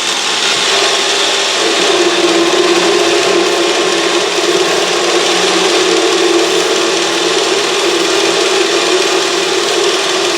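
Autobox 8x16 mini lathe running with its power (auto) feed engaged, the tool taking a cut in the spinning workpiece; a steady low hum joins the motor and cutting noise about two seconds in.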